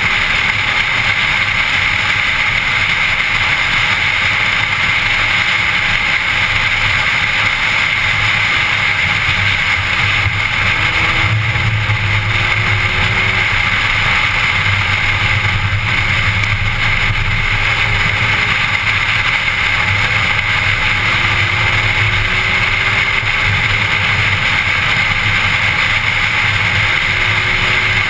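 A car driving at speed, heard from inside the car: a steady loud drone of engine, tyre and wind noise. A faint engine note rises slowly in pitch several times, each rise lasting a few seconds.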